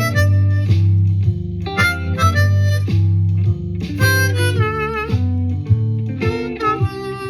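Blues harmonica, a C harp in second position, playing licks over a guitar blues shuffle backing track in G, with wavering held notes about four to five seconds in.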